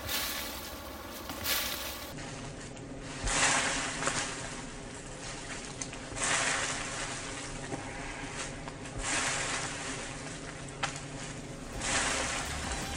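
Repeated shin kicks against a thin tree trunk in iron-leg conditioning. Each kick is a dull knock followed by a swell of rustling from the shaken branches and dry leaves, fading over about a second, and they come every two to three seconds.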